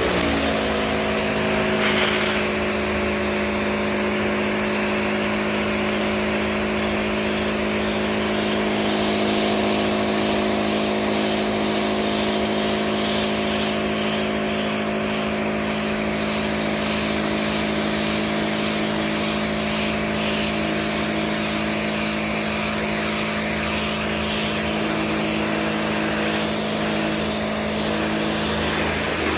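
Pressure washer coming up to speed right at the start, then running steadily with a constant hiss of spray.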